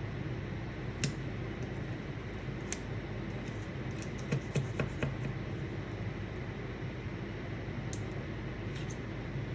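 Hand scraper scratching and clicking against stuck, burnt-on crust in short strokes, busiest around the middle, over a steady low background hum.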